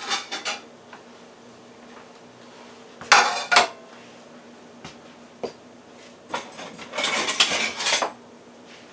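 Kitchenware handled on a countertop: a few light clinks, then a sharp clatter about three seconds in as a dinner plate is set down, and a longer rattle of dishes and utensils near the end. A low steady hum runs underneath.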